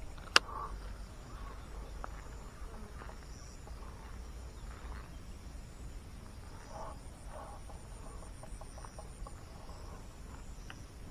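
Insects buzzing steadily at a high pitch, with one sharp click about half a second in and a few fainter clicks and rustles after.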